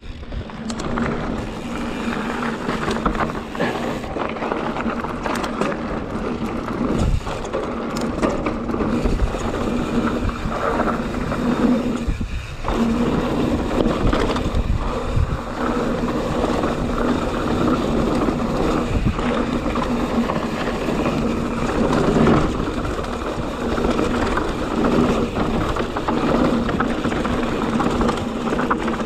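YT Jeffsy full-suspension mountain bike rolling fast down a dry, hard dirt and stone trail: continuous tyre rumble on the ground with the bike rattling and knocking over bumps, briefly quieter about twelve seconds in.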